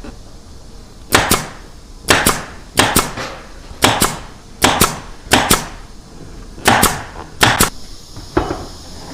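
A pneumatic staple gun firing again and again, each shot a sharp snap, mostly as quick double shots about a second apart, over steady factory background noise.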